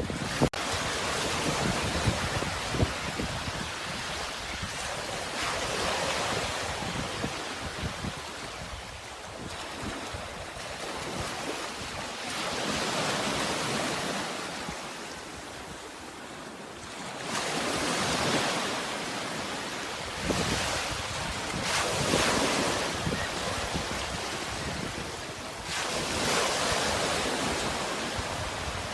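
Sea waves breaking and washing onto the shore, each wave a hiss that swells and then fades, about seven times.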